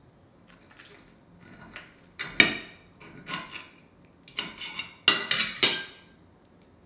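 Metal knife and fork clinking and scraping while cutting a steamed dumpling. Several short clinks, the loudest about two seconds in and a close run of them about five seconds in.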